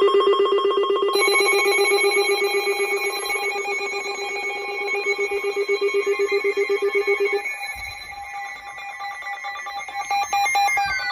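Electronic alert tones warbling in a rapid trill. A second, higher tone joins about a second in. The low trill stops about seven seconds in, and tones glide downward in pitch near the end.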